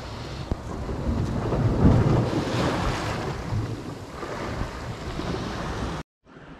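Sea waves washing against a rocky shore, with wind buffeting the microphone in low rumbles, strongest about two seconds in. The sound cuts out for a moment near the end.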